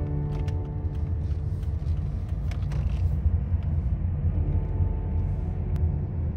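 Cabin noise inside a Volvo XC70 driving slowly: a steady low rumble of engine and tyres as the car gathers a little speed, with faint engine tones above it and a few light clicks.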